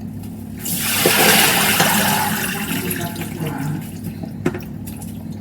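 Kitchen tap turned on about a second in, water running steadily into the sink to wash fruit.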